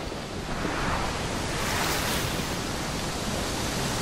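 Rushing noise like surf washing in, swelling about half a second in and at its strongest around two seconds, from an intro sound effect.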